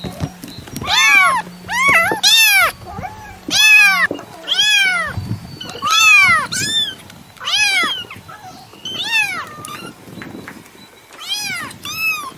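A domestic cat meowing repeatedly, about ten short meows, each rising then falling in pitch. There is a pause of about two seconds before the last two.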